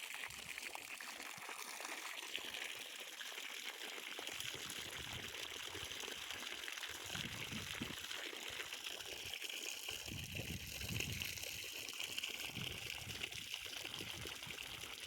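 Water running steadily and trickling as a tree is watered, with a constant even splashing hiss.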